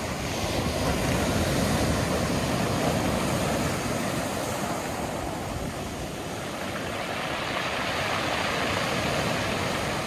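Sea surf breaking and washing up a pebble beach: a continuous rush of water that swells and eases, loudest about a second in and again near the end.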